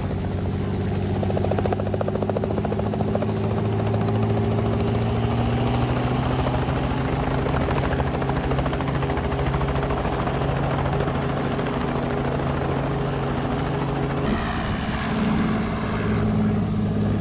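Robinson piston-engine helicopters running at close range: a steady rotor chop over an engine drone, from one helicopter turning on the pad while another comes in to hover and land. The pitch creeps slowly upward over the first several seconds, and the sound changes abruptly about fourteen seconds in.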